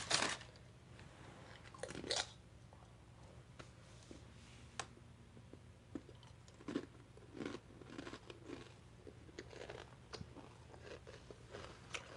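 A person biting and chewing a burrito, with irregular soft crunches and mouth smacks.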